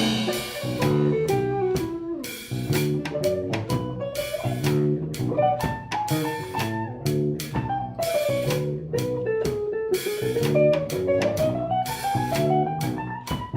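Instrumental band playing a jazz-style piece: a melody line runs down and then climbs back up, over regular drum-kit hits and a repeating bass line.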